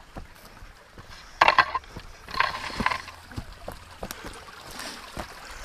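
Footsteps going down a shallow, stony creek bed: irregular splashes and crunches in water and on gravel, with the loudest splashes about one and a half and two and a half seconds in.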